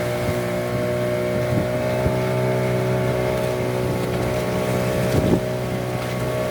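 Fishing boat's motor running steadily under way, with a few short thumps, the loudest about five seconds in.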